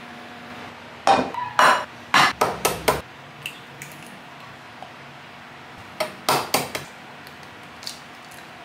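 Eggs being cracked, their shells knocked sharply against the rim of a metal bowl: a quick run of about six taps about a second in, then three more around six seconds in.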